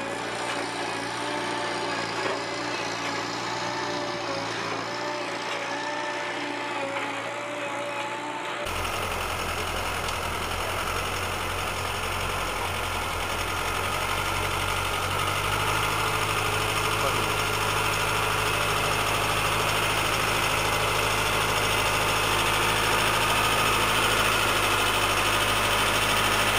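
Farm machinery running steadily. First a sod harvester's engine and conveyor with a wavering whine. About nine seconds in, a sudden change to a louder tractor engine driving a leek harvester, a steady deep hum with a whine over it, rising slightly in loudness toward the end.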